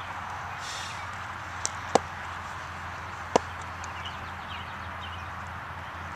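Two sharp knocks of a cricket ball, about a second and a half apart, over steady background noise; short bird-like chirps follow briefly.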